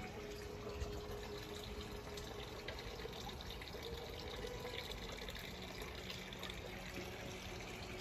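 Steady trickle of running water.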